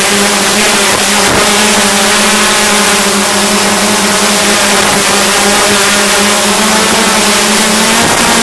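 Hexcopter's electric motors and propellers humming steadily in flight, heard from the drone's onboard camera: one unchanging pitch with a hiss of propeller wash and wind over it.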